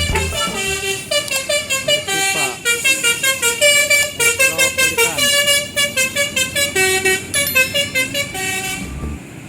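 Bus 'telolet' basuri melodic horn playing a fast tune of short notes, several a second, changing pitch from note to note. The tune stops near the end.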